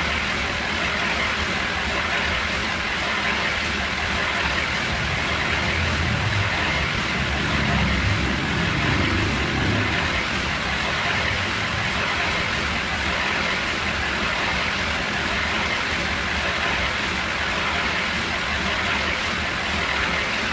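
Handheld electric power tool running steadily as it cuts into the top of a wooden door frame, a constant whirring hiss with no pauses.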